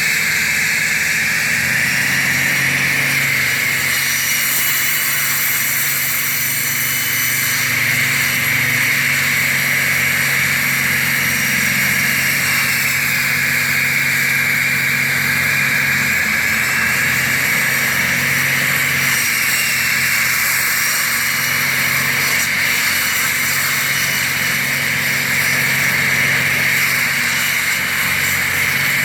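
Concrete floor saw cutting steadily, a high whine over a low motor hum.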